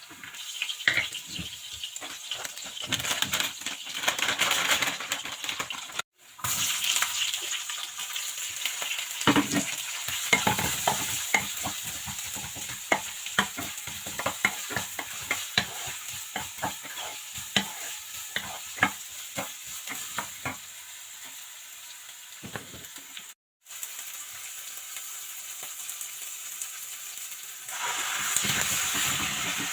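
Food frying and sizzling in a pan, with a spoon stirring and clicking against the pan throughout. The sound breaks off abruptly twice for a moment.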